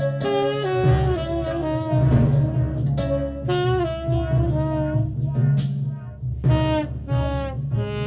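Improvised saxophone line of held notes stepping up and down, over low, drum-like tones and occasional strikes from a Roland HandSonic electronic hand-percussion pad.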